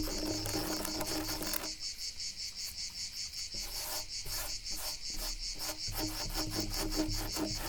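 Crickets chirping steadily, with scratching on wood over them. The scratching stops briefly about two seconds in and resumes about four seconds in as quick repeated strokes, three or four a second.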